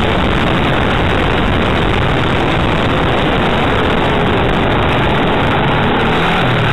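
Motorcycle riding along at speed: a loud, steady rush of wind and road noise, with the engine running underneath and its note showing a little more clearly near the end.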